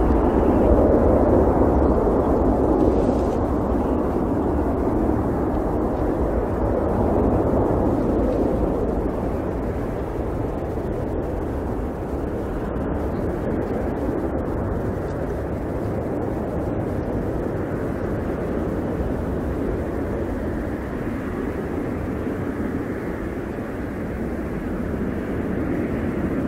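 Four-engine Boeing 747's jet engines at takeoff power, a steady rush of jet noise, loudest at first and slowly fading as the airliner rolls away and lifts off.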